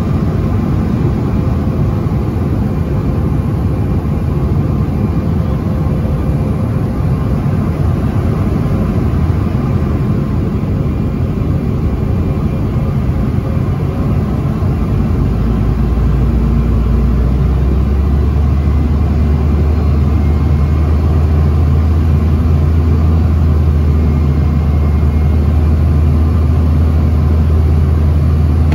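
Cabin noise of a Bombardier CRJ-900 regional jet in descent: the steady rush of airflow and the rear-mounted jet engines. About halfway through, a low rumble swells and then holds steady.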